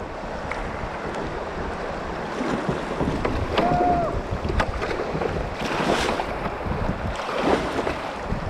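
River water rushing over a shallow stony riffle around a kayak, with the paddle blade splashing in on each stroke and wind buffeting the microphone. A short whistle-like tone sounds about three and a half seconds in.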